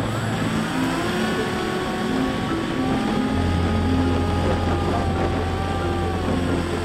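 Electric motor and pusher propeller of a Bixler 3 RC plane whining, its pitch sliding up and down with the throttle, under steady wind rushing past the onboard camera's microphone.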